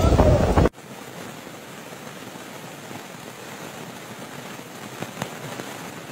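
Storm wind buffeting the microphone, cut off abruptly about a second in, then a steady hiss of heavy rain falling on a flooded street.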